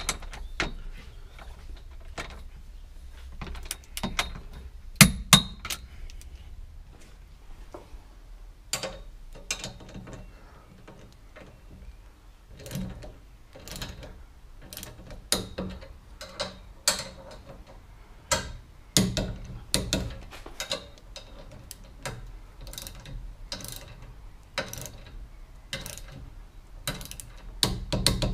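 Ratchet and wrenches on the steel roll-cage bolts: irregular sharp metallic clicks, ratchet ticking and tools knocking against the cage tubes as the bolts are tightened, with a couple of louder knocks about five seconds in.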